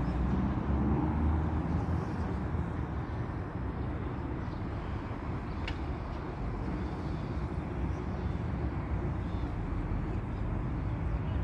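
Steady low outdoor rumble with no clear single source.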